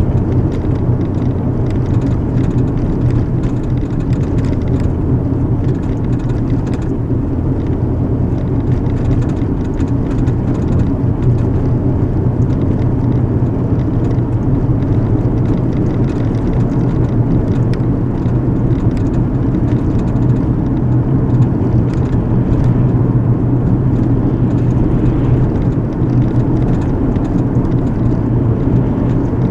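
Steady road noise inside a moving car: tyres on pavement and the engine running at cruising speed, a low constant rumble and hum.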